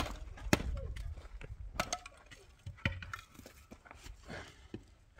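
A few sharp, irregular clinks and knocks of hard objects being handled, the loudest right at the start.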